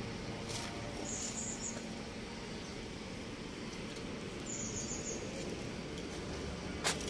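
Steady outdoor background noise with short high-pitched chirps about a second in and again around four and a half seconds, and a single sharp click near the end.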